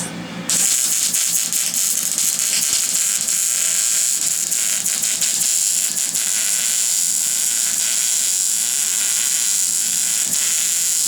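Wire-feed welder arc crackling and hissing steadily as a weld bead is laid, starting about half a second in.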